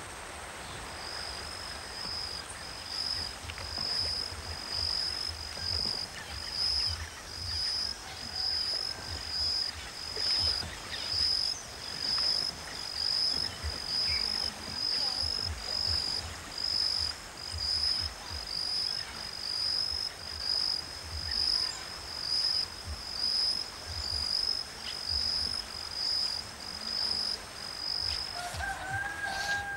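Tropical forest insects: one high chirp repeating evenly, a little over once a second, over a steady higher whine. A brief rising call comes in near the end.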